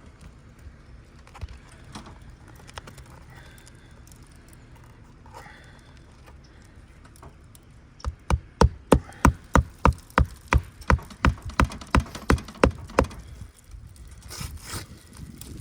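Hammer nailing a three-tab roof shingle back down: a quick run of about twenty sharp blows, some four a second, starting about eight seconds in, after faint scraping and handling of the shingle.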